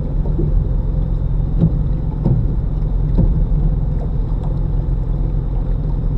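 Steady low engine drone of an electrofishing boat under way, with a faint steady high whine above it.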